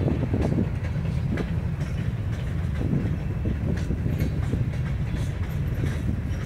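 Freight train cars, covered hoppers and tank cars, rolling past: a steady low rumble of steel wheels on rail, broken by frequent irregular clicks and clunks.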